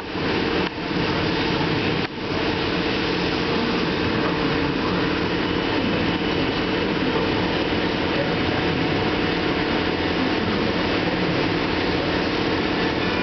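Powder-coating equipment running: a loud, steady rush of air with a faint hum under it, dipping briefly twice in the first couple of seconds.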